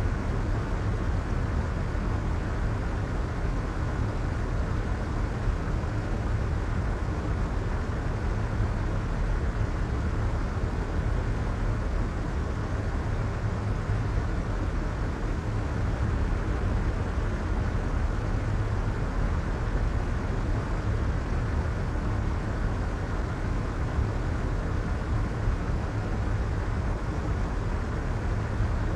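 Steady, unchanging soft white noise, heaviest in a deep low rumble and muffled in the highs.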